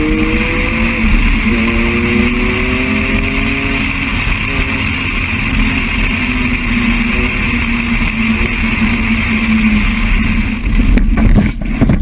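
BMW car engine accelerating hard, its pitch climbing and dropping back several times as it runs up through the gears, over heavy wind and road noise. About ten and a half seconds in, the engine sound breaks up into a jumble of knocks and rattles as the car leaves the road and crashes.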